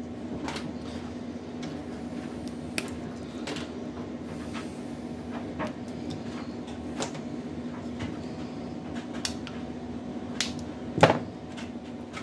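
Snips and clicks of side cutters cutting through PC cables and connectors as the wires are handled, scattered every second or two with the loudest snip near the end, over a steady low hum.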